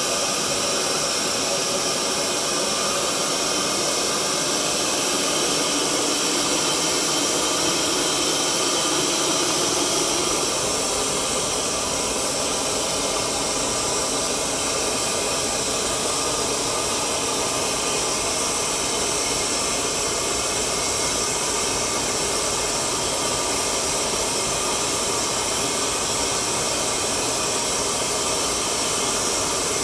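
Steady, even roar of a kiln during firing, the sound changing slightly in tone about ten seconds in.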